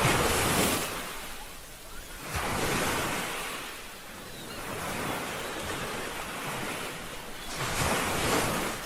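Ocean surf: waves breaking and washing in, a rushing noise that swells and falls in surges, loudest at the start and again near the end.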